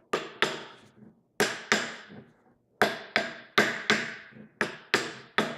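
Hammer tapping a freshly installed axle-shaft U-joint to loosen up the stiff new joint: about a dozen sharp taps, mostly in quick pairs, each with a short ring.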